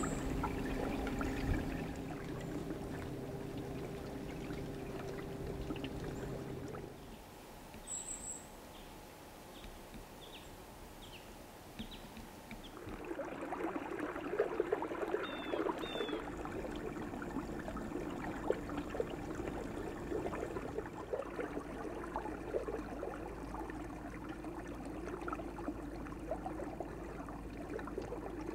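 Water lapping and trickling close by, a light, continuous splashy dribble. A steady low hum underlies the first several seconds, and a few faint bird chirps come in the quieter middle stretch.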